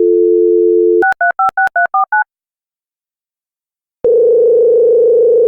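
Telephone dial tone that stops about a second in, followed by about seven touch-tone (DTMF) digits dialed quickly. After a pause of roughly two seconds, a steady buzzing tone starts as the line rings.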